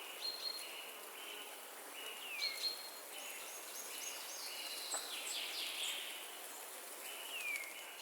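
Forest ambience: a steady rush of wind with birds singing over it. There is a string of short, high notes repeated over and over, and a couple of falling whistles.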